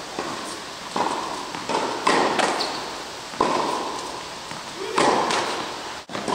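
Tennis ball being hit back and forth in a rally, with about five sharp racket strikes and bounces in all, one every second or two. Each pop rings on in the big indoor tennis hall.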